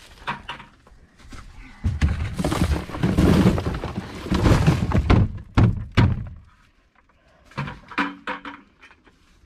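Clumped cat litter dumped from a bucket onto cardboard boxes in a plastic tote: a gritty pour of clumps lasting about three seconds, then two thuds and a few scattered knocks near the end.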